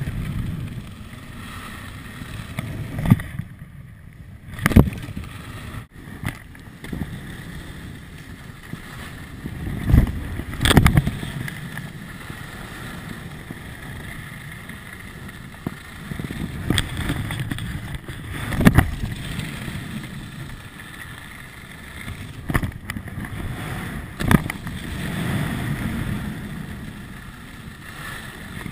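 Skis running over firm groomed snow, with wind rushing over the camera microphone. The run is broken by a handful of sharp thumps and clatters from the skis on jump take-offs and landings. About four seconds in, a brief near-quiet gap ends in one of the thumps.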